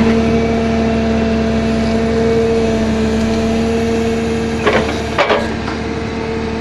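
Diesel engine of a forestry machine running steadily at a constant speed, with two sharp knocks about five seconds in.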